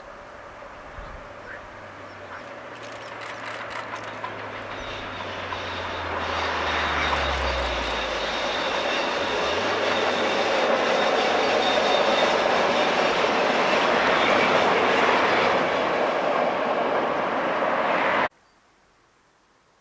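Noise of a passing vehicle that builds steadily to a peak, with a low tone that drops in pitch as it passes, then cuts off suddenly near the end.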